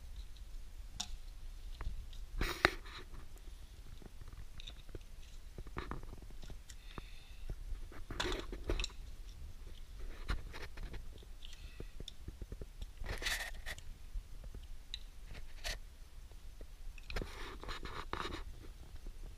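Two flat-bladed screwdrivers scraping, grating and clicking against the valve plugs of a John Beam R2020 pump head as the plugs are wiggled and pried loose. There is a sharp metallic knock about two and a half seconds in, and bursts of scraping every few seconds.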